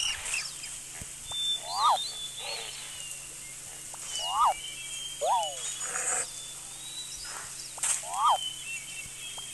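Bird calls over a steady outdoor hiss: a short call that sweeps up and back down repeats about four times, with thinner, higher chirps in between.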